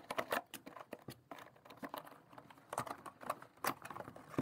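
Webcam retail box being opened by hand: a run of irregular light clicks, taps and scrapes of cardboard and packaging as the inner tray is pulled out.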